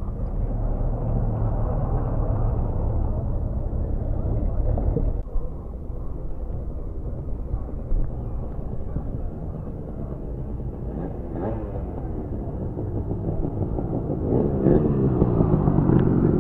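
Two-stroke motorcycle engine running while riding, with wind on the microphone. The engine note dips briefly about five seconds in, then the revs climb near the end.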